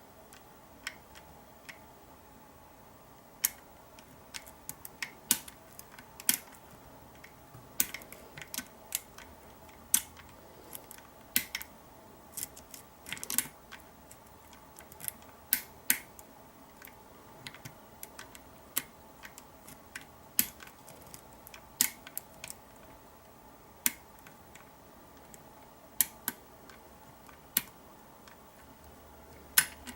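Sharp little metallic clicks and ticks at irregular intervals, a few a second at most, from a pick working the sliders of a Kwikset SmartKey deadbolt lock.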